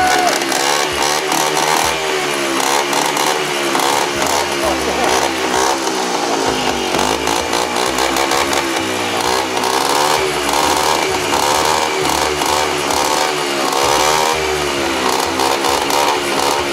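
Vespa Ciao moped's small two-stroke single-cylinder engine running on its first start, its pitch rising and falling again and again as the throttle is worked by hand. The idle is not yet set.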